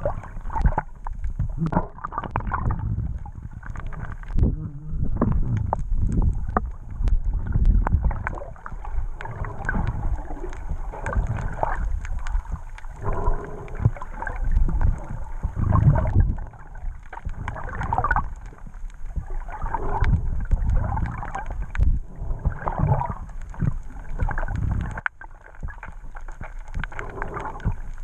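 Muffled, uneven sloshing and gurgling of water heard through an underwater camera's waterproof housing as it moves through the water, with a faint high steady whine above it.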